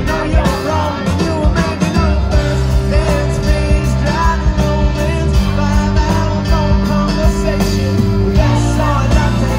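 Live rock band playing with electric guitar, keyboards, bass and drums under a male lead singer's vocals.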